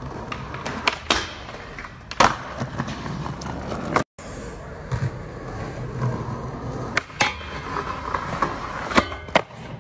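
Skateboard wheels rolling on concrete, broken by several sharp clacks of the tail popping and the board landing. About four seconds in, the sound drops out for a moment at a cut, then a board rolls up and clacks onto a low round metal rail and slides along it.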